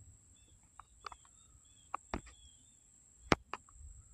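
Faint outdoor ambience: wind rumbling on the microphone, scattered short high chirps, and several sharp clicks, the loudest a little past three seconds in.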